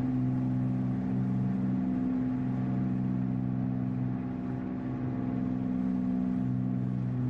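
A light aircraft's engine droning steadily in flight, swelling and fading slightly now and then.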